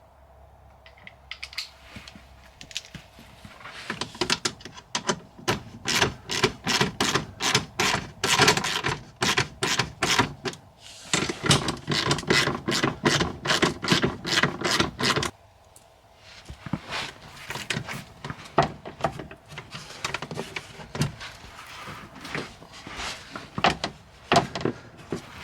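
Hand tools and fasteners clicking and rattling in quick runs while the under-car fluid catch tray is being fitted, with a short pause about fifteen seconds in.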